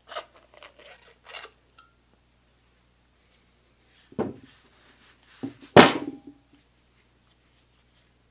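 Metal parts of a winch's planetary gearbox being handled and pulled apart: light clicks and scrapes at first, then a knock about four seconds in and a loud metal clunk a couple of seconds later, with a brief ring after it.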